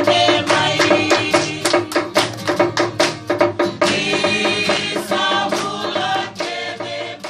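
A group of voices singing a Fijian song to strummed acoustic guitar, over a steady beat of sharp percussive strokes. The music drops away at the very end.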